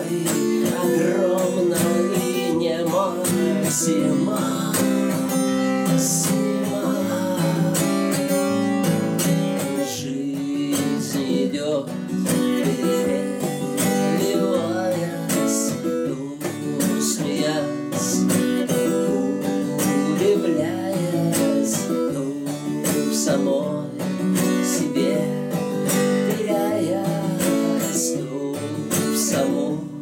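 Cutaway acoustic guitar strummed in a steady song accompaniment, with a man's singing voice over it.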